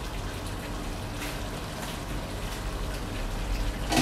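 A pot of pork igado stew simmering on a gas stove, giving a steady soft bubbling hiss with a few faint ticks. A low steady hum runs underneath.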